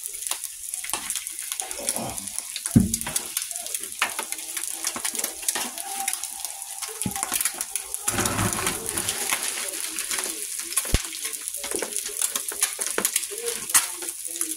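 Fried eggs sizzling in bacon grease in a cast iron pan, a steady crackle throughout. A few knocks and a clatter of plates being set down come through over it, about 3, 7 and 8 to 9 seconds in.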